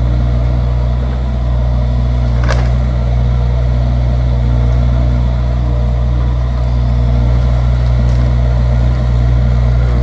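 Hyundai excavator's diesel engine running steadily while the machine works its skeleton bucket through branches. Two short sharp cracks come about two and a half and eight seconds in.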